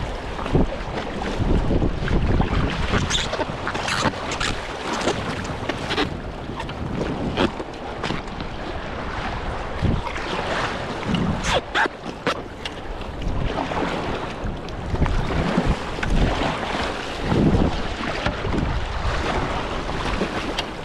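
River water rushing and splashing around a kayak, with several sharp splashes along the way, and wind buffeting the microphone.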